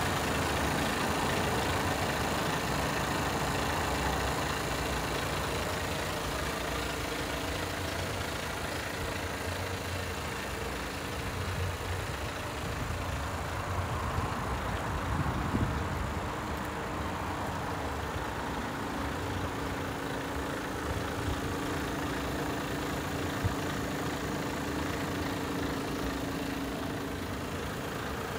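Iveco Stralis tractor unit's 460 bhp Euro 6 diesel engine idling steadily, with a single sharp click near the end.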